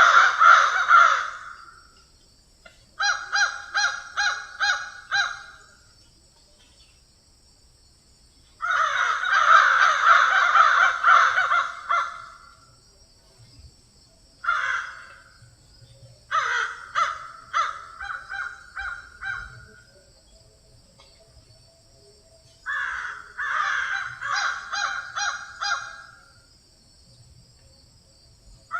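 Several crows cawing in bouts of rapid, repeated harsh caws, some bouts dense and overlapping, with quiet gaps of a few seconds between them.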